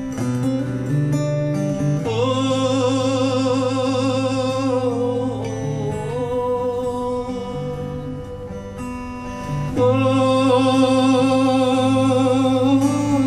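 Acoustic guitar playing an instrumental break in a slow ballad, with a melody of long held notes with vibrato above the chords. The melody swells from about two seconds in and again near ten seconds.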